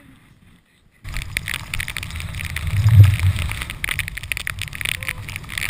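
Skiing or snowboarding noise from a chest-mounted action camera: edges sliding and scraping over snow, with wind buffeting the microphone. It starts suddenly about a second in, with a loud low thump near three seconds.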